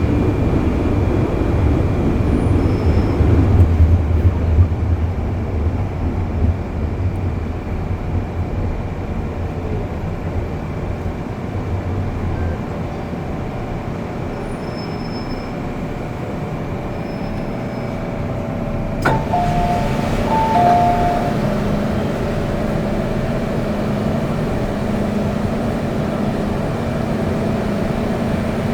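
MTR Kwun Tong Line M-Train heard from inside the car: a low running rumble that fades over the first dozen seconds, then a sharp click and a short two-note chime about two-thirds of the way through, over a steady electrical hum.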